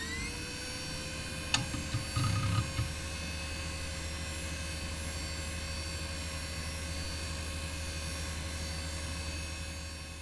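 Intro sound effect: a steady drone with a held tone running under it, a sharp tick about a second and a half in, and a few low thuds between two and three seconds.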